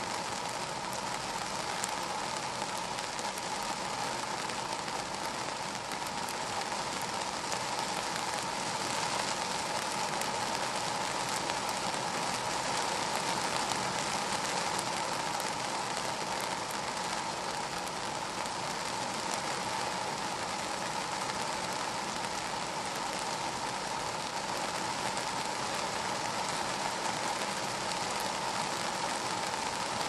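Steady rain falling on a car's glass and roof, heard from inside the car, with fine drop ticks throughout.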